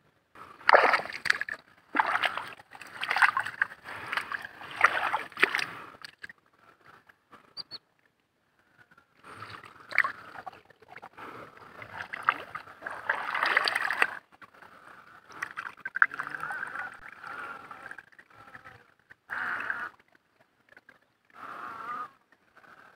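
Hands and arms splashing and sloshing in a shallow muddy pool while digging and groping into a crab burrow, in irregular bursts with short pauses.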